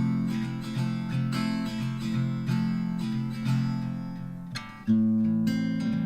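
Background music: acoustic guitar plucked and strummed in an even rhythm, with a fresh strum about five seconds in.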